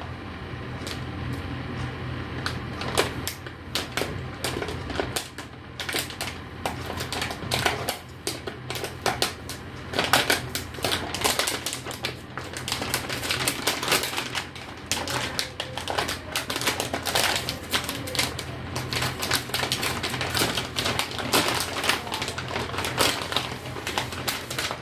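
Graphics card packaging being handled: a dense, irregular run of small clicks and crackles as the box, plastic and card are moved about. A low steady hum lies underneath.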